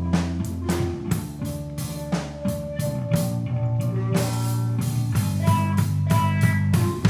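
Rock band playing with guitar, bass guitar and drum kit; regular drum hits under sustained bass and guitar notes.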